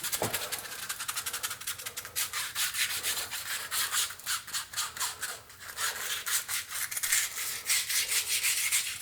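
Rolled-up fine sandpaper rubbing round inside the bore of a Maytag dryer drum support roller in quick, repeated scratchy strokes. It is scouring out the gunk that made the roller drag and screech.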